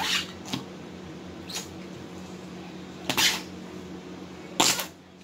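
A few short, noisy handling sounds, the plainest about a second and a half in, around three seconds in and near the end, from clear slime and its plastic tubs being handled, over a steady low hum.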